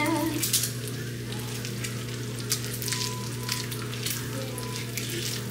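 Bacon sizzling on a griddle, an even hiss with occasional sharp pops.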